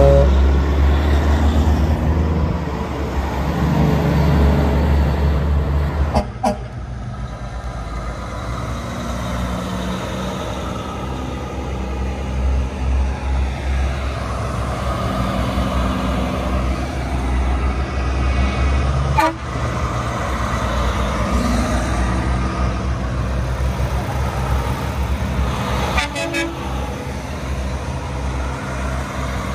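Heavy semi-trailer trucks driving with diesel engines running, and truck horns tooting, loudest near the start. The sound jumps abruptly three times.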